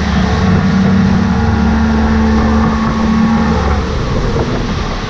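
Outboard motor of a speedboat running steadily at speed, with the rush of the churning wake and wind. The engine note lets up a little about three and a half seconds in.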